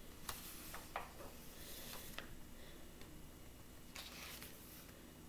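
Faint rustling of paper as pages of a paperback coloring book are turned by hand, with a few light taps.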